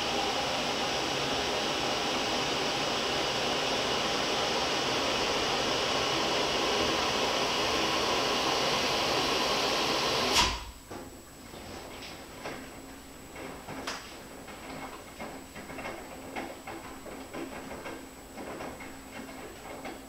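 Front-loading washing machine running with a steady loud rushing noise that cuts off with a clunk about ten seconds in. After that it goes quiet apart from irregular light clicks and knocks over a faint hum as the drum starts turning the wet laundry.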